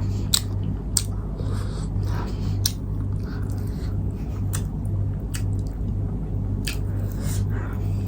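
Close-up eating sounds: wet chewing with sharp, irregular lip smacks and squishes. A steady low hum runs underneath.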